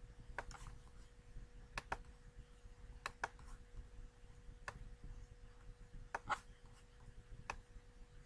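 Computer mouse clicking about ten times at uneven intervals, some clicks in quick pairs, over a faint steady hum.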